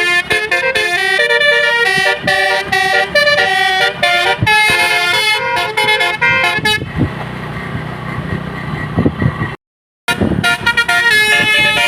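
Tour bus's basuri musical air horn playing a fast tune of stepped horn notes. After about seven seconds the tune breaks off, leaving a lower rumble, then the sound cuts out briefly and the horn melody starts again.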